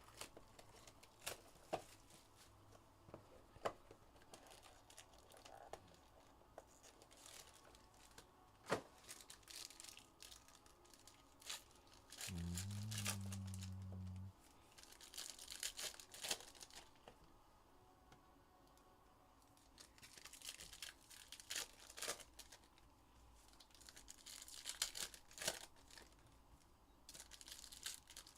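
Quiet tearing and crinkling of plastic wrap and foil card packs, with light clicks and taps as the trading-card box and packs are opened. About halfway through, a low steady buzz lasts about two seconds.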